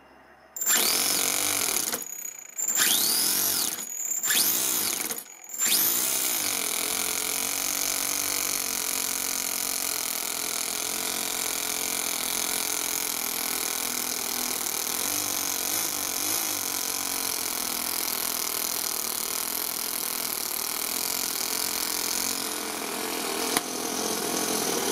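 Toyan FS-S100 single-cylinder overhead-cam four-stroke model engine being started with its starter: three short cranking bursts with brief pauses, then about six seconds in it catches and keeps running steadily.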